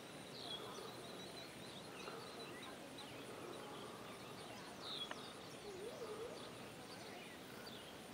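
Faint outdoor background with scattered short, high bird chirps throughout, and a couple of lower, soft calls a little past the middle.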